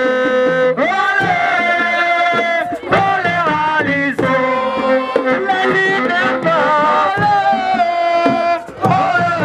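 Music: a long, held melody line with notes that bend and slide, over a rhythm of hand-drum strokes.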